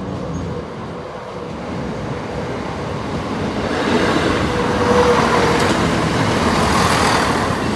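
Class 170 Turbostar diesel multiple unit 170502 passing close by: its underfloor diesel engines and wheels on the rails grow louder from about three seconds in and stay loud as the coaches go past. A brief steady note sounds about five seconds in.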